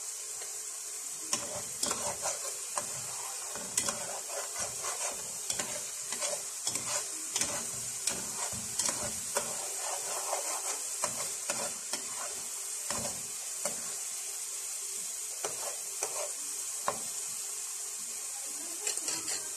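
Cooked glutinous rice being stirred with a wooden spoon in a pot of hot, bubbling melted-sugar syrup: a steady sizzling hiss with irregular knocks and scrapes of the spoon against the pot.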